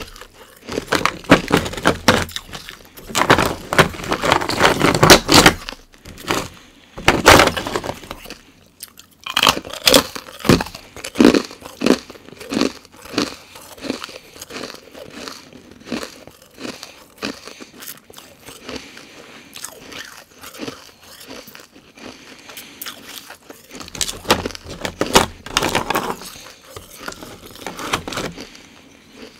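Close-up crunching and chewing of carbonated ice, ice frozen from sparkling water, bitten and ground between the teeth in dense, loud crackling crunches. The loudest bursts come in the first several seconds and again a little before the end, with softer chewing in between.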